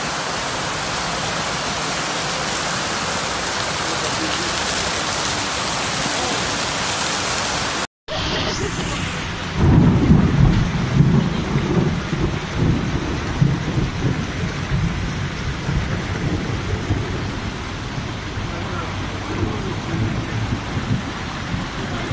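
Heavy downpour hissing steadily. After an abrupt cut about eight seconds in, a lower, uneven, gusting rumble takes over and is louder than the rain.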